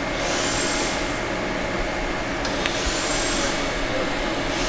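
TIG welding arc on steel tubing, hissing steadily, with a sharper, higher hiss swelling about every two seconds.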